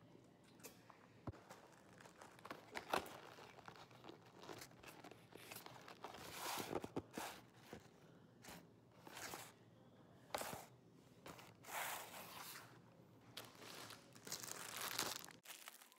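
Quiet rustling and crinkling of grocery packaging being handled, broken by a few soft knocks and clicks.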